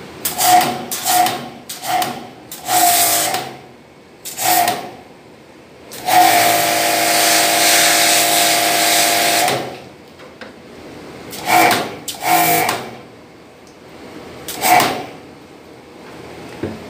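Pressure washer spray gun fired in short bursts: each trigger pull gives a hiss of spraying water with a steady humming tone from the pump. There are five quick bursts, then one long spray of about three and a half seconds in the middle, then three more short bursts against the steel table.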